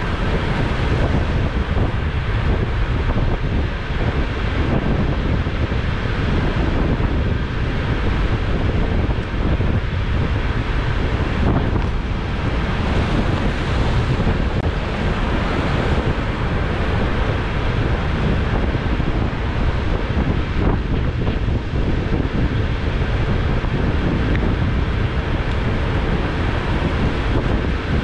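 Steady wind buffeting the microphone, a continuous low rumble and rush without breaks.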